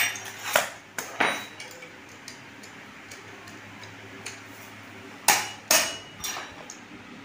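Sharp metal knocks and clinks of hand tools striking a chainsaw's clutch to loosen it, with the piston locked by a rod. A few single knocks, then the two loudest close together about five seconds in.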